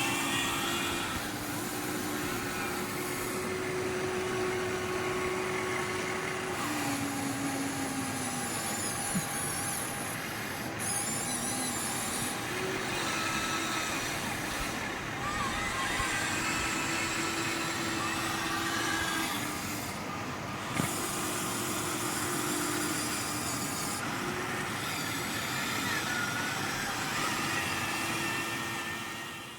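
Electric motors and plastic gears of a Huina 1593 1/14-scale RC excavator whining in separate movements of a few seconds each, some steady and some dropping in pitch, over a constant background hiss.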